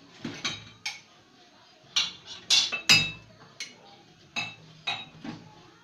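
Dishes and metal utensils clinking and knocking together in a kitchen sink: about ten sharp clinks with a brief ring, the loudest few coming close together about halfway through.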